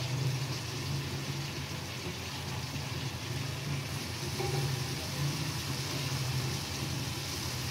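Boiled chickpeas and onions sizzling and bubbling gently in hot oil in an aluminium kadhai, with a steady low hum underneath.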